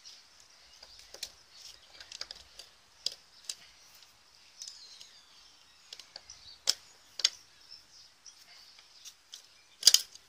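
Irregular clicks and taps of a hand screwdriver turning a screw into a plastic socket plate against a motorhome's side wall, about a dozen in all. The loudest click comes near the end.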